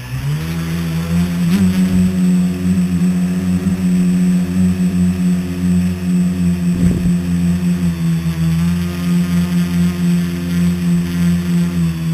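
Scratch-built tricopter's electric motors and propellers spinning up, rising in pitch for the first half second as it lifts off, then a steady buzzing hum in flight, heard from the camera on board the craft.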